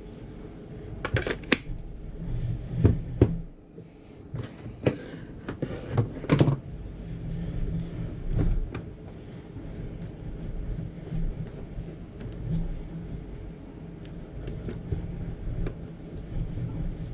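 Ryobi One+ R18RT cordless rotary tool running unmounted with a steady motor hum. Several sharp knocks and clicks of handling come in the first few seconds, then light ticks.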